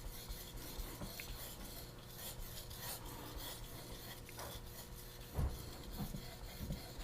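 Steel knife blade rasping back and forth on a wet whetstone, repeated strokes a few a second, faint and even, as the edge is sharpened toward the tip.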